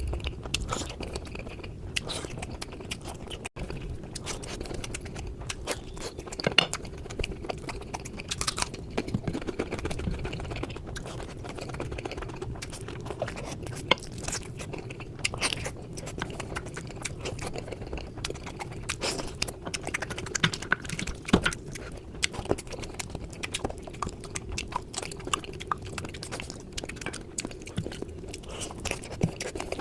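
Close-miked chewing and biting of a person eating, with frequent crunches and wet mouth clicks.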